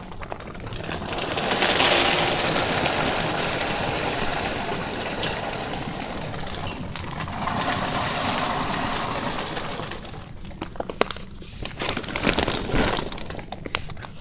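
A long rustling hiss of dry hay, loudest about two seconds in, then scattered crisp crackles and crunches as a horse eats hay and feed.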